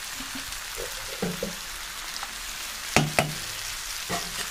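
Aubergine and tomato curry sizzling in hot oil in a pan, a steady hiss, with two sharp knocks about three seconds in and a softer one near the end.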